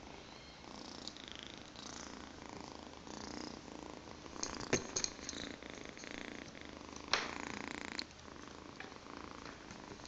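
Exotic shorthair kitten purring while being stroked. A few sharp clicks come about halfway through, and a brief scratchy noise about seven seconds in.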